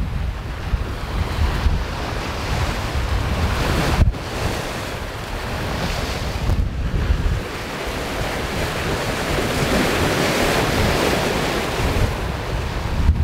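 Wind buffeting the microphone over the rush and hiss of choppy waves breaking along the hull of a sailing yacht moving fast under sail.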